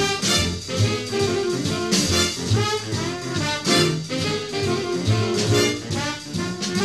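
Jazz music with brass instruments over a steady beat.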